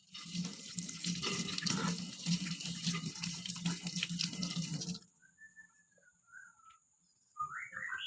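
Tap water running into a sink during handwashing, for about five seconds, then shut off abruptly. A few faint high chirps follow near the end.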